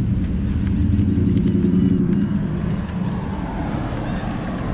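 Road traffic passing close by: a car's engine hum and tyre noise, strongest in the first half and easing off after about three seconds.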